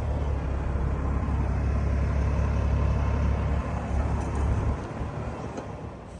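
Heavy truck engine running, a strong deep low sound with a noisy wash above it; the low part drops away about three-quarters of the way through, leaving fainter background noise.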